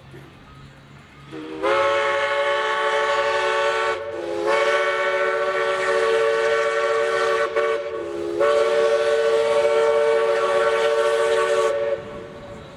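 Steam whistle of East Broad Top No. 15, a Mikado steam locomotive, blown in three long blasts with several tones sounding together. The pitch slides up as each blast opens.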